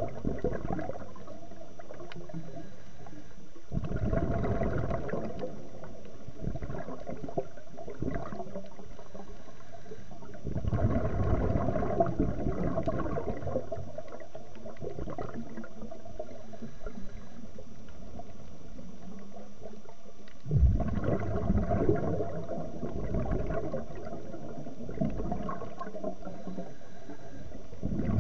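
Scuba diver's exhaled breath through the regulator: bubbles rushing past the camera in long bursts about every seven to ten seconds, with a steady underwater hiss between them.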